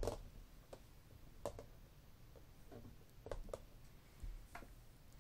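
Plastic ball-and-stick molecular model pieces being handled, fitted together and set down, giving a handful of light clicks and knocks.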